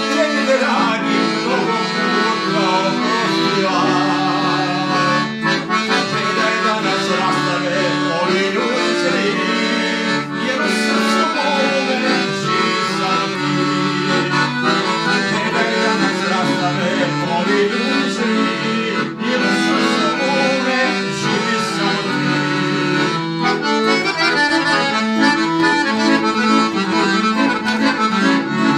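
Weltmeister piano accordion playing a tune, with moving melody notes over steadily held bass notes.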